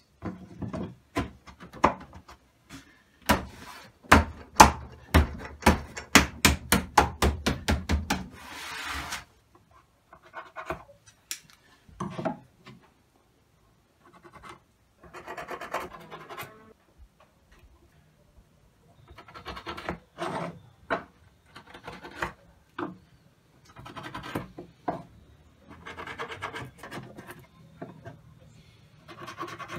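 A run of sharp wooden knocks and taps, quickening to about four a second over the first eight seconds. Then scattered bouts of scratching and rubbing as a pencil marks a wooden table top along a square and rule.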